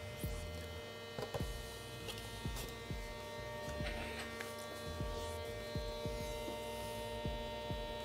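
Steady electrical hum of a welding machine, with a few faint clicks scattered through it.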